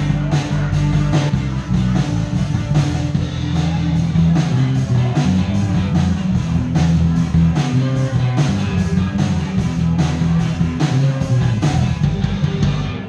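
Live rock band with drums, electric guitar, violin and bass playing the closing bars of a song, with strong bass notes and a steady drum beat; the music stops abruptly at the very end.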